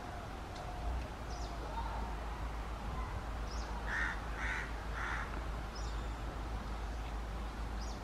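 Oriental magpie robin giving three short, harsh calls about half a second apart near the middle, with a few faint high chirps scattered through, over a steady low rumble.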